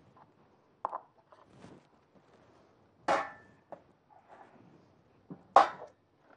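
A few sharp knocks and clatters of things being handled on a kitchen counter, the loudest two about three seconds in and near the end.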